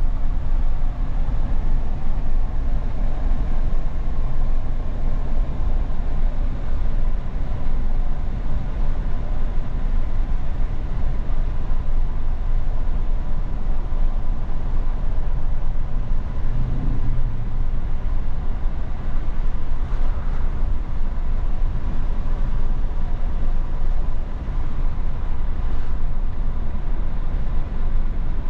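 Wind buffeting the microphone through an open car window while driving, a steady low rumble over the car's road noise.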